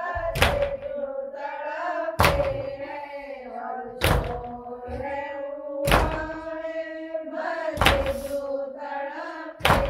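Matam chest-beating: six heavy slap-thuds about two seconds apart, in time with a chanted nauha lament voice.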